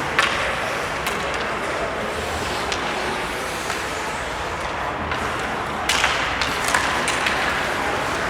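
Ice hockey play on the rink: a steady rushing noise of skates on the ice, with sharp clacks of sticks and puck, a few early and a quick run of them in the last couple of seconds.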